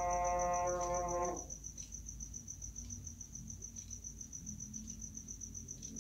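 A man's long held chanted note of the tarhim ends about a second and a half in. A cricket chirps steadily throughout, in rapid, even, high-pitched pulses, over a low hum.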